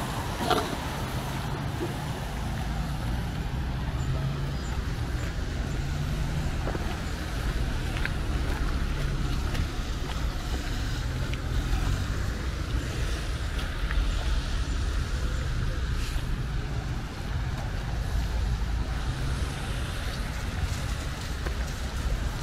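Road vehicle engine and traffic noise: a steady low rumble with an even hiss over it and a few faint clicks.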